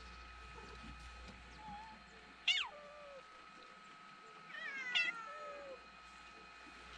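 Street cat meowing twice: a short, sharp call about two and a half seconds in, then a longer, drawn-out meow about two seconds later.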